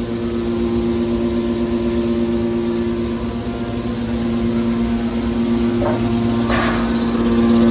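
Hydraulic scrap metal baler compactor running with a steady hum, with a short rasping noise about six seconds in.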